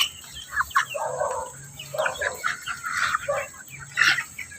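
A flock of chickens clucking: many short, overlapping calls at irregular intervals.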